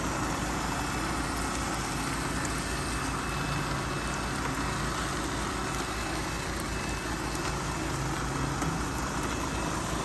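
Two robot vacuums, a Lubluelu and an iRobot Roomba 690, running together: a steady whir of their suction motors and brushes.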